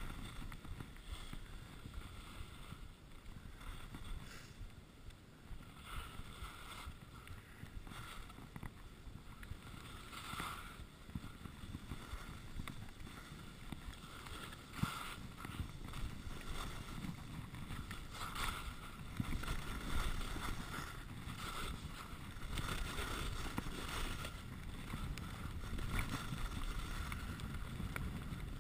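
Skis hissing and scraping over groomed snow during a run, with louder swishes every few seconds, over wind rushing on the camera microphone.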